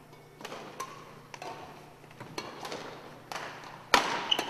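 Badminton rally: rackets striking a shuttlecock in a string of sharp smacks, with footfalls on a wooden gym floor. The loudest hit comes about four seconds in and rings briefly in the large hall.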